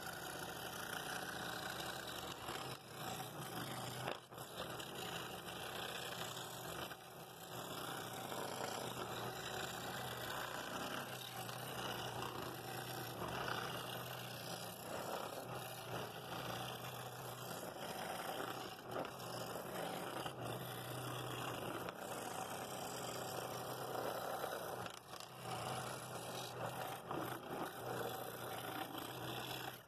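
Scroll saw running steadily with a low hum, its reciprocating blade cutting intricate inside fretwork cuts in walnut.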